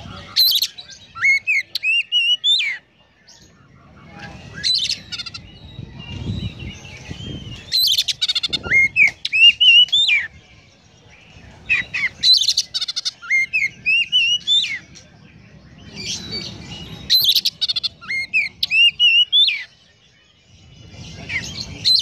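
Oriental magpie-robin singing in repeated phrases about every four seconds. Each phrase opens with a burst of sharp high chirps, mimicked tree-sparrow calls, and runs into a string of short rising whistles. A low background rumble fills the gaps between phrases.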